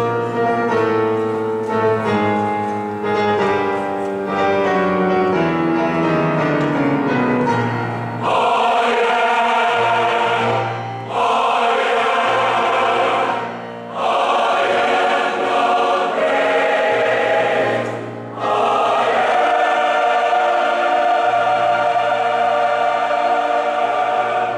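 Large mixed choir singing with piano accompaniment. A stepwise descending passage gives way about eight seconds in to loud, held choral phrases with brief breaks between them.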